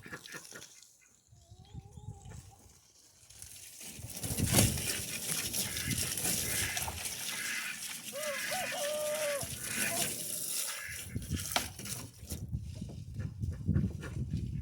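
Farm animal calls: a short call about two seconds in and a longer wavering call around eight seconds, over a steady hiss with a few knocks from about four to eleven seconds.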